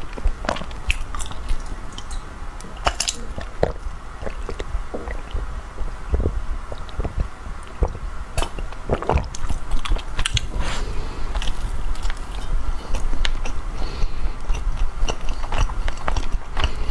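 A person biting and chewing matcha bread, with wet mouth clicks and smacks throughout. About halfway through comes a sip from a glass mug.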